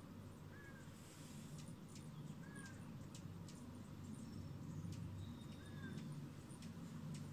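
Faint outdoor ambience with a steady low hum, a bird's short chirp repeated about every two seconds, and scattered faint ticks.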